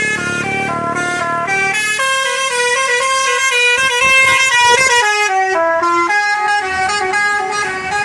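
Tour bus 'telolet' musical horn, a set of electric horns playing a fast, loud tune of short stepping notes, several at once. The tune shifts lower about five seconds in.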